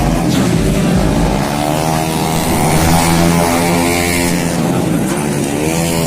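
Tuned automatic racing scooters passing at speed, their engines' pitch rising and then falling as each goes by, several in succession.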